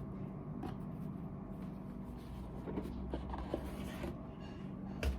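A cardboard gift box being opened and handled by hand: scattered light scrapes, clicks and rustles of packaging, with a sharper knock near the end.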